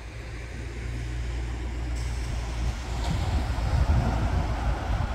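Ocean surf breaking and washing up the beach, with wind rumbling on the microphone. The wash of the surf grows louder about three seconds in.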